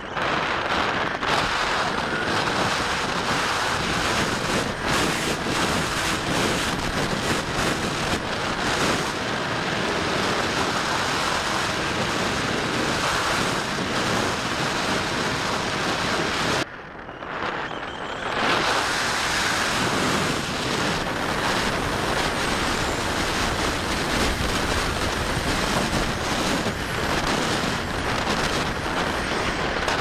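Steady rushing wind over the microphone of a camera mounted on a Bix3 RC glider in flight, dipping sharply for about a second some 17 seconds in, then returning.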